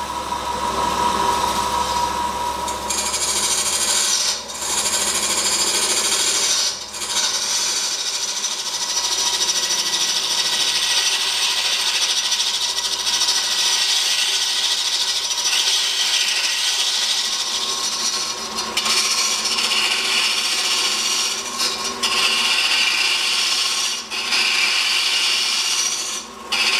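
Epoxy resin blank with iron filings cast inside, spinning on a wood lathe and rough-turned with a carbide-tipped Easy Wood Tools cutter: a steady hissing cut as ribbons of resin peel off. The cut breaks off briefly a few times as the tool lifts or shifts.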